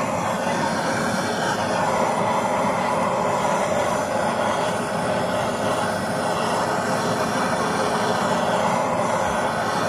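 Handheld butane blowtorch burning with a steady hiss as its flame sears salmon-topped sushi rolls.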